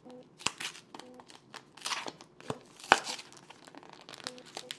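Pokémon trading-card booster pack's foil wrapper crinkling and tearing as it is peeled open by hand, in irregular crackles with a sharp one about three seconds in.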